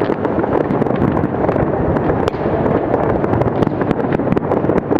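Aerial firework shells bursting in a dense, continuous barrage: an unbroken din of bangs with many sharp crackles and pops throughout.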